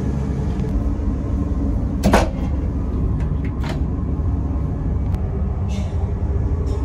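Steady low rumble of a KCIC400AF high-speed train cabin under way, with a sharp knock about two seconds in and a few lighter clicks and knocks after it.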